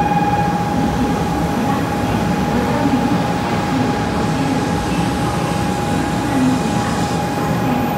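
A 500 series shinkansen in Evangelion livery rolling slowly past a platform, with a steady low rumble of running gear and a thin, steady high whine, which is stronger near the start.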